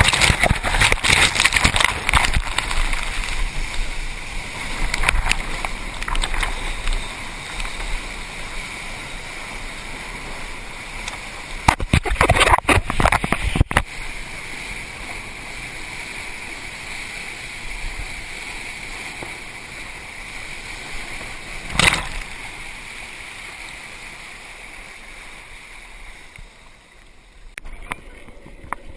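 Sea water rushing and splashing against a kayak and paddles, with a steady hiss throughout, heavy splashes in the first few seconds and again about halfway, and one sharp splash or knock a little later.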